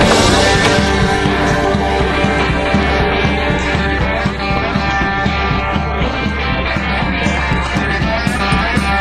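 Rock music soundtrack with guitar and a steady low bass line.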